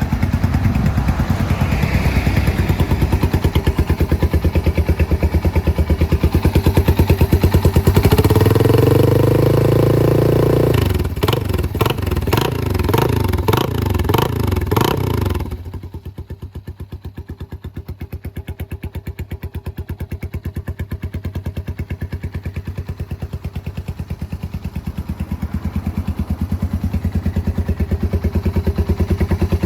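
Yamaha TW225's air-cooled single-cylinder four-stroke engine running through an aftermarket silencer. It idles, is revved and held about eight seconds in, is blipped several times, then drops back to a lower, quieter idle about halfway through.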